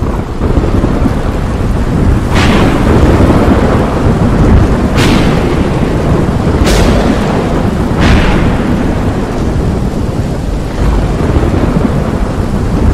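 Thunderstorm sound effect: continuous low rumbling with rain, broken by four sharp thunder cracks that each fade away. The first crack comes about two seconds in and the last about eight seconds in.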